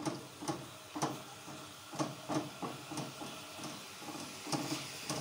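A spatula knocking and scraping against a nonstick wok as sliced onions are stirred in hot oil: about a dozen irregular clacks over a steady sizzle.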